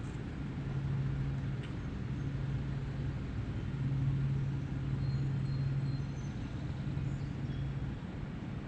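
A steady low hum of distant motor traffic that swells and eases slightly, with a few faint, short high chirps over it.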